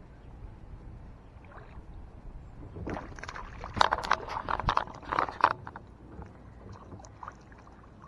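Fighting a small bass from a kayak: a low steady rumble, then a run of sharp irregular clicks and knocks from about three to five and a half seconds in, tapering off to a few scattered clicks.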